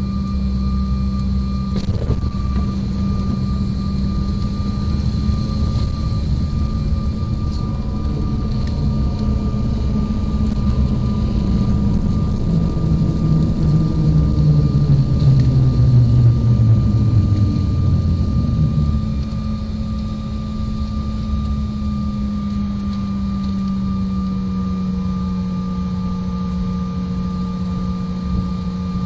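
Cabin noise of a Bombardier CRJ-900 rolling out after landing: steady hum from its rear-mounted jet engines. Midway a low rumble grows louder and slides down in pitch, then the sound eases off about two-thirds of the way through as the jet slows toward taxi speed.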